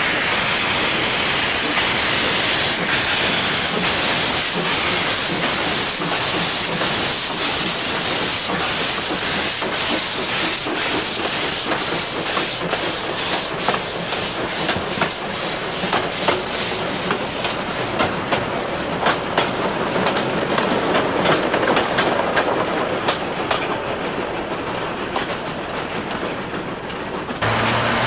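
Metre-gauge steam train hauled by 4-6-0T tank locomotive E327 running past close by: a steady rush of running and steam noise, with wheels clicking over the rail joints, the clicks thickest in the middle. Near the end the sound changes abruptly to a steadier low hum.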